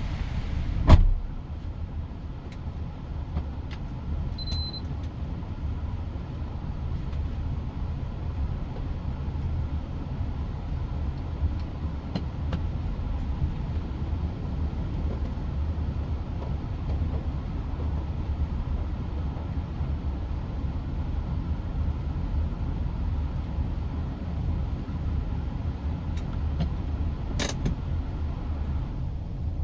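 Mitsubishi Pajero Sport on the move, heard from inside the cabin: a steady low rumble of engine and road noise. A sharp knock sounds about a second in, and a fainter click near the end.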